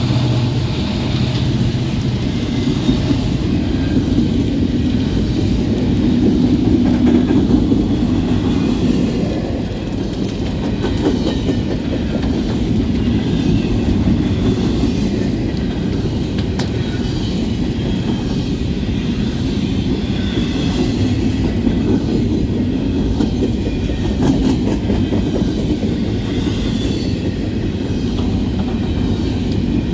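Freight train cars rolling steadily past, steel wheels clicking over the rail joints.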